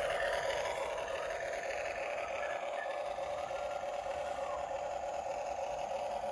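An RC excavator's motors running with a steady whine.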